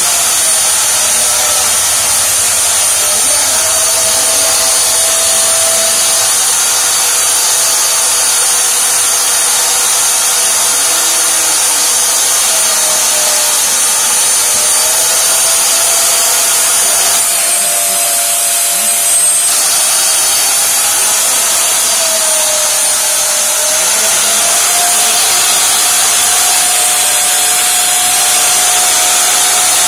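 Two 1500 W vacuum motors on a backpack run continuously, making a loud steady whine with rushing air as they pull air out of the hand-held suction pads. The whine's pitch shifts slightly a few times.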